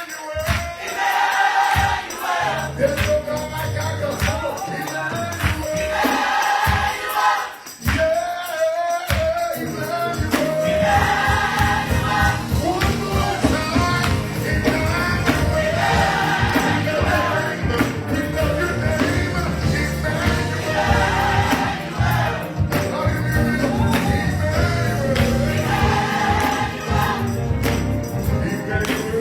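Gospel choir singing with live band accompaniment. The bass fills in fully about ten seconds in.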